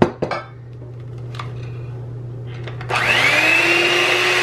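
A sharp knock, then a few light taps; about three seconds in, an electric hand mixer switches on, its motor whine rising quickly to a steady speed as the beaters churn eggs into creamed butter and sugar.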